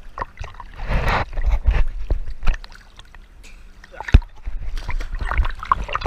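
Sea water sloshing and splashing against an action camera held at the water surface, with a low rumble of water on the housing, a sharp knock about four seconds in, and heavier splashing near the end.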